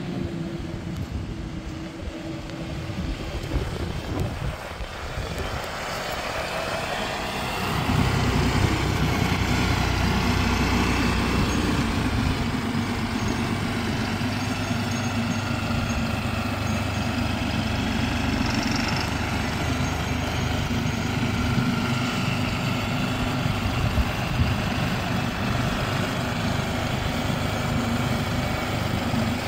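Farm tractor engine running, getting louder about eight seconds in and then holding steady, its pitch wavering slightly as it works.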